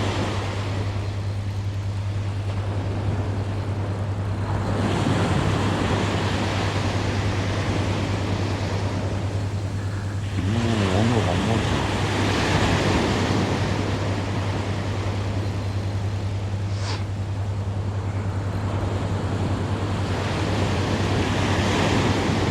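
Surf breaking and washing up a beach, the wash swelling every five to ten seconds, over a steady low rumble. A brief wavering pitched sound comes about eleven seconds in, and a short sharp click about seventeen seconds in.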